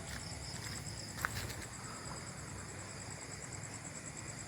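Crickets and other night insects chirping steadily in a high, fast-pulsing trill, with a single faint click about a second in.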